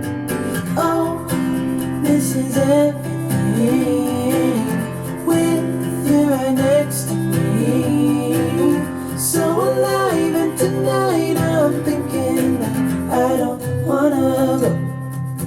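Guitar-led music with a gliding melody over sustained bass notes, played back through Grundig Super HiFi Box 2500 loudspeakers.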